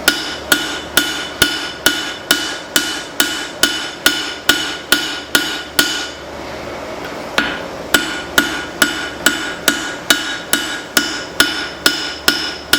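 Hand hammer striking hot leaf-spring steel on an anvil while forging the bevels of a cleaver: a steady run of ringing blows, about two a second. The blows stop about six seconds in and start again a second and a half later.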